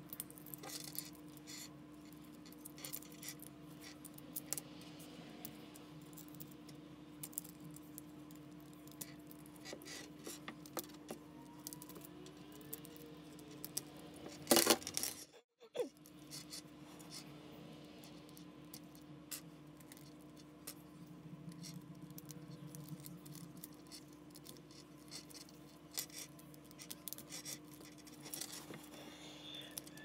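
Scattered light clicks and small rattles of hard objects being handled, over a steady low hum, with a louder clatter about halfway through.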